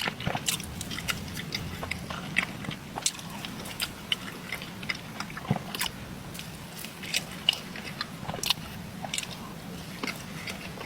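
Close-up mouth sounds of a person eating a dense peanut butter cheesecake: chewing with many short, sharp lip smacks and clicks scattered throughout.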